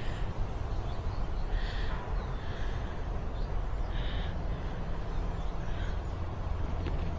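A bird gives about four short, harsh calls a second or so apart, over a steady low background rumble.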